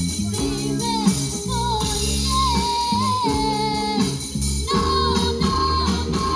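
Band music: a song's lead melody sliding between held notes over bass, chords and steady percussion.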